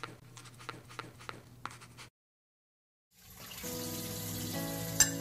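A few soft ticks over a low hum, then a second of silence, then a kitchen faucet running into a stainless steel sink under soft background music, with one sharp click near the end.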